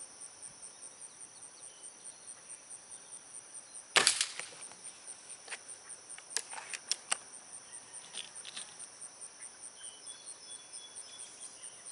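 A spring-piston air rifle fires a single shot about four seconds in, a sudden report with a short rattle after it, followed by a few lighter sharp clicks a couple of seconds later. Steady insect chirring runs underneath throughout.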